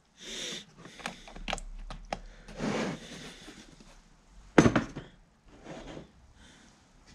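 Clicks, knocks and rubbing of large metal outside micrometers and their cases being handled, with a sharper, louder knock about four and a half seconds in.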